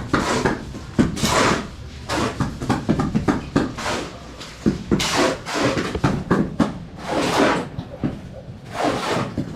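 Irregular scraping strokes with short knocks in between: masons' hand tools working wet cement render on a wall.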